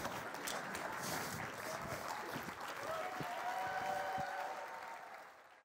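Theatre audience applauding, with a few voices in it. The applause fades away near the end and then cuts off.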